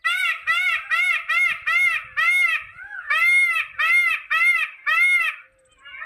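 Indian peafowl (peacock) calling in a rapid series of short calls, each rising and then falling in pitch. About four calls a second for the first two seconds or so, then after a brief pause a slower run of somewhat longer calls that stops shortly before the end.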